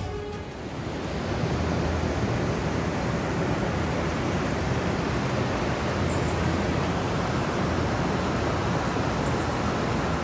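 River water rushing over a weir and rapids: a steady, even rush of flowing water.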